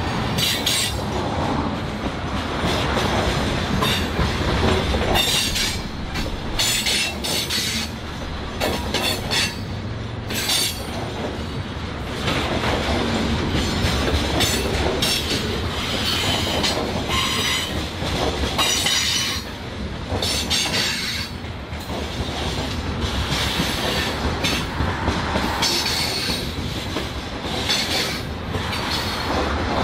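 Tank cars of an oil train rolling past close by: a steady rumble of steel wheels on rail, broken by frequent short, high-pitched wheel squeals.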